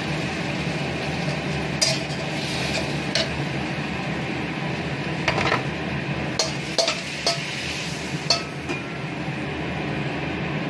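Metal spatula scraping and clinking against a stainless steel wok as shrimp and onions are stirred and then scraped out onto a plate: several sharp clinks scattered over a steady background noise.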